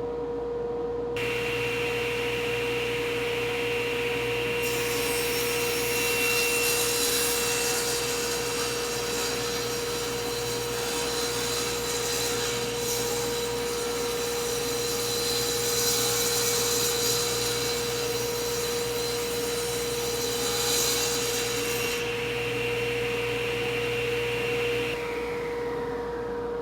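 Table saw ripping a hard maple board, fitted with a general-purpose blade rather than a ripping blade. The motor's steady hum runs throughout, while the blade's cutting hiss starts about a second in, grows brighter a few seconds later and eases off near the end.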